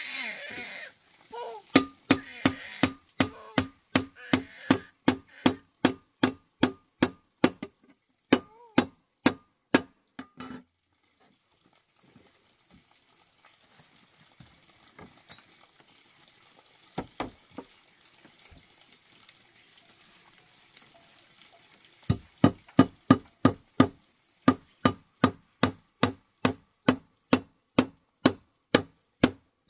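Repeated sharp knocks of a hand tool striking, evenly paced at about two to three a second, each with a short low ring. They come in two runs with a pause of about ten seconds between them.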